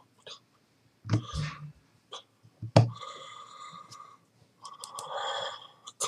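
A man's breathy, wordless vocal sounds, broken by two dull thumps about a second and nearly three seconds in.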